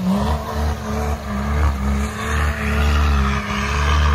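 BMW M57 3.0 inline-six turbodiesel in a Nissan Patrol Y61, revving hard at full throttle through a 3-inch side-exit exhaust while the truck spins its tyres and flings mud. Its low drone dips briefly a few times.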